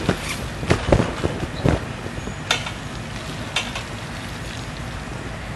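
Steady hiss of water spraying over a trampoline, with several dull thumps of bodies landing on the wet trampoline mat in the first two seconds and a couple of sharper knocks later.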